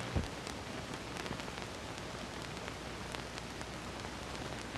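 Steady hiss with scattered faint clicks and crackles: the surface noise of an old film soundtrack between lines of narration.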